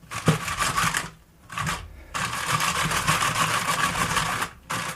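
Chainsaw chain rattling in an aluminum cake pan as the pan is shaken, a fast run of metal clicks in spells with short pauses.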